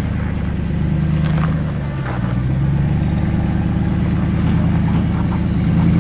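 Jeep Wrangler engine running at low revs under load as it crawls up a rock obstacle, its pitch rising and falling with the throttle.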